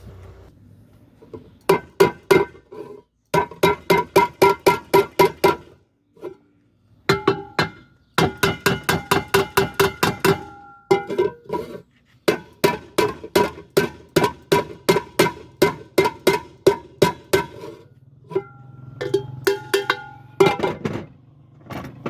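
Hammer blows on a metal pressure cooker, in rapid runs of about five ringing strikes a second with short pauses between. These are the sounds of beating a warped part of the cooker back into shape.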